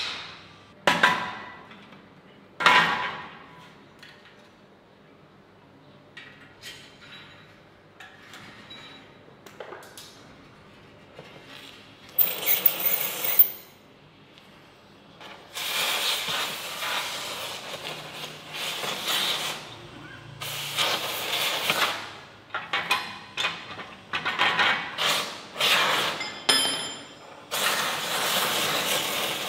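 Three loud metal clanks with ringing tails near the start, then light clinks of steel parts. From about halfway a gas cutting torch hisses in long stretches that stop and start as it cuts through steel.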